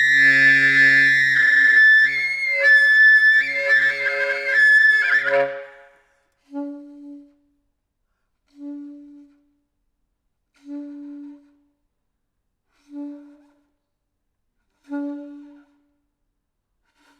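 Solo saxophone playing loud, sustained tones with several pitches sounding at once, breaking off about six seconds in. Then five short, soft notes on the same low pitch follow, about two seconds apart.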